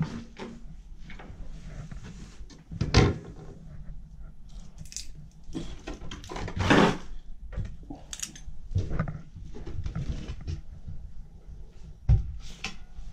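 Irregular knocks, scrapes and rustles of a person moving about and handling things among clutter and debris, with louder knocks about three seconds in, near seven seconds and near the end.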